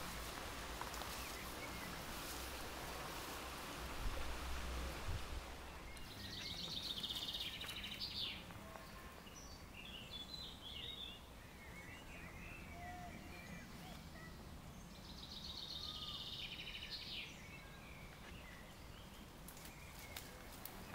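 A songbird singing outdoors: two quick, high trills of about two seconds each, some nine seconds apart, with scattered chirps between them. Before the first trill there is rustling with a low rumble of wind on the microphone.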